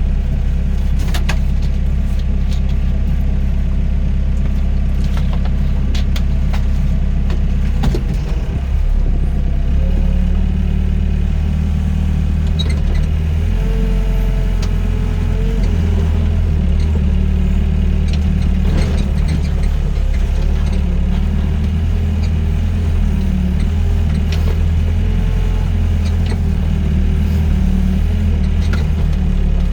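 Doosan DX55 mini excavator's diesel engine running steadily. The drone shifts in pitch a few times as the machine works, with scattered light clicks and knocks.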